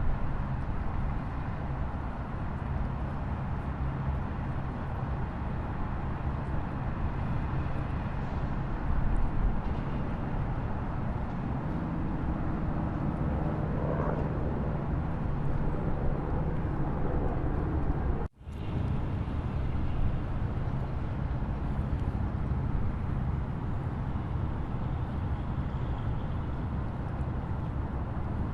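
Steady rushing noise of a waterfall, heaviest in the low rumble, breaking off for an instant about eighteen seconds in.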